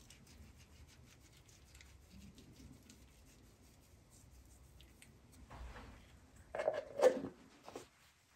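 Hand-held pepper mill grinding black pepper over a bowl of broth: a rapid run of small dry clicks. Near the end come a few louder knocks and clatters.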